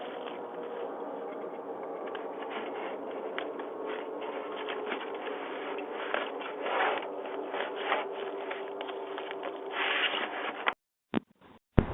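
Scraping and rustling heard through a doorbell camera's microphone, over a steady hiss and faint hum, with two louder rustles late on; the sound cuts off about eleven seconds in.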